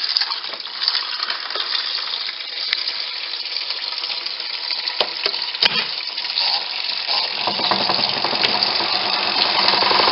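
Wet laundry being handled at a twin-tub portable washing machine: water trickling and splashing, with scattered clicks. About seven seconds in, the spin-dryer motor starts and runs up, getting louder, a bit noisy with only a small load in the spin tub.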